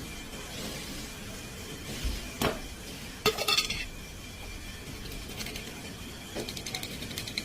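Metal parts or tools clinking against each other over a steady background hiss: a single clink, then a short run of clinks, then a quicker cluster of light clinks near the end.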